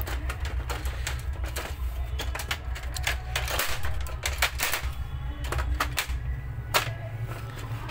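Irregular clicks and knocks of copier parts being handled during reassembly, over a steady low hum.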